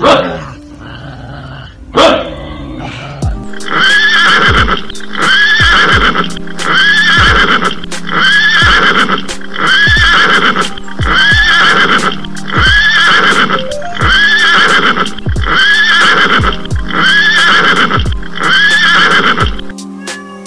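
A horse neighs twice in the first two seconds. Then background music with a steady beat and a short looped phrase repeating about every second.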